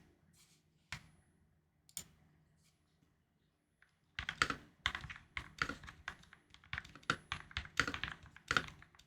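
Typing on an NK65SE custom mechanical keyboard with lubed and filmed Gateron Milky Yellow linear switches, GMK keycaps and PE foam under the switches. Two faint single clicks come about one and two seconds in, then a pause, then steady typing from about four seconds in.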